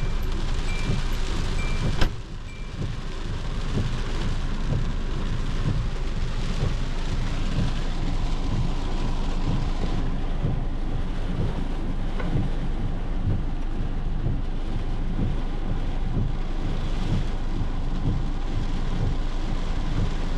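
Heavy wind-driven rain falling steadily, with gusty wind rumbling low underneath, heard from inside a vehicle. A sharp click about two seconds in.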